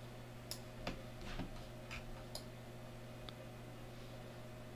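A handful of faint, irregular computer mouse clicks over a steady low electrical hum.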